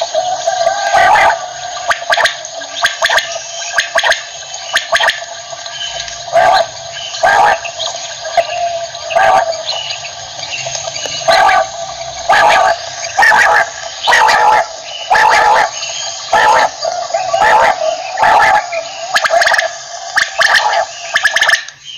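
Common quail calling over and over, a short call about once a second, over a steady background hiss.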